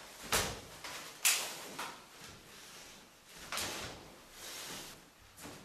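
Rustling and swishing of a large sheet of cloth wrapped around a moving person, in about five short, sharp strokes, the loudest near the start.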